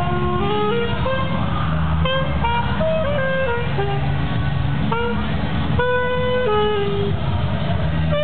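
Saxophone played live: a quick melody of short notes stepping up and down, with one longer held note about six seconds in, over a steady low rumble.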